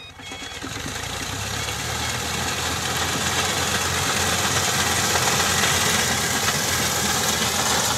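Tractor diesel engine running steadily as it drives a front-mounted reaper through standing wheat, growing louder over the first few seconds.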